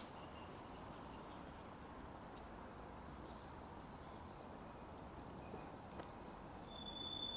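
Faint city street ambience: a steady hum of distant traffic, with a few brief, thin high-pitched notes. It grows a little louder near the end.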